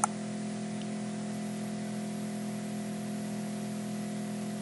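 Steady background hum of several low tones with an even hiss over it, unchanging throughout: the room and electrical noise picked up by the recording microphone, with no clicks or other events.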